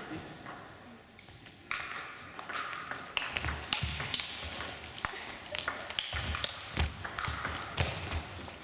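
Table tennis rally: the ball clicking back and forth off the bats and table in quick succession, starting about two seconds in, with low thuds among the shots.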